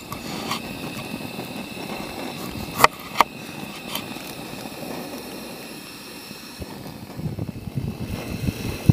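Kitchen knife cutting through a lime on a wooden cutting board, with sharp knocks of the blade on the board, the loudest two close together about three seconds in, over a steady outdoor noise bed. Irregular crackling near the end.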